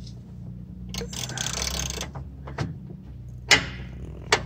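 Metal parts and a hand tool scraping and clicking as a part is worked into place and bolts are fitted, with a few sharp clicks in the second half, the loudest about three and a half seconds in.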